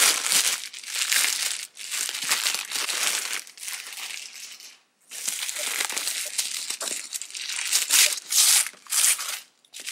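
Clear plastic bag and white wrapping paper crinkling and rustling as a wrapped cosmetic pouch is handled and unwrapped by hand. There is a brief stop about halfway through, and the rustling is loudest near the end.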